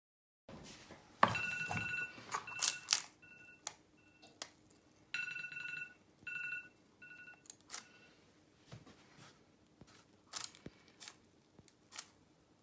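Knife cutting into the crisp baked crust of a sourdough loaf: sharp crunchy crackles and scrapes, loudest in the first few seconds and thinning out later. A high squeal sounds in short stretches for the first half.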